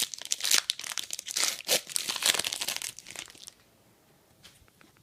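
A trading-card pack's wrapper crinkling as it is torn open, a dense crackling that stops about three and a half seconds in. A few faint ticks follow.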